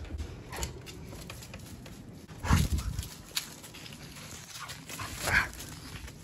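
A dog giving two short loud calls, about two and a half and five and a half seconds in, with scattered footsteps and small knocks in between.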